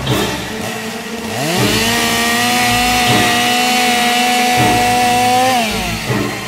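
Chainsaw engine revving. The pitch climbs about a second and a half in, holds steady at high revs for about four seconds, then drops away near the end.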